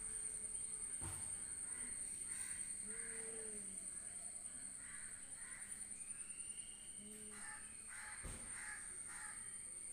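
Animal calls: short, low, pitched calls every few seconds, with a longer higher call that rises and falls in the middle, over a steady high whine.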